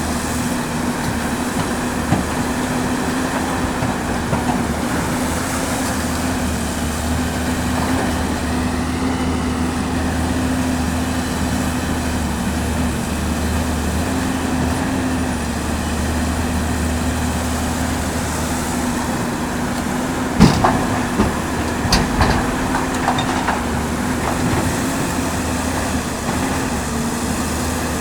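Caterpillar 329D L hydraulic excavator's diesel engine running steadily under load while loading excavated earth. A cluster of sharp knocks and clanks comes about two-thirds of the way through.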